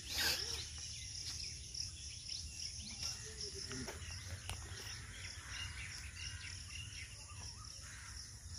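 Faint outdoor ambience: scattered short bird chirps over a steady insect drone, with a low rumble underneath.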